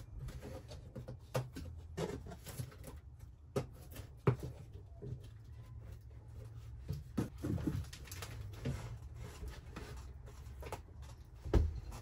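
Scattered clicks, taps and light knocks from hand work on the metal ceiling assembly of an RV rooftop air conditioner as its bolts are loosened and the assembly is eased down, over a steady low hum.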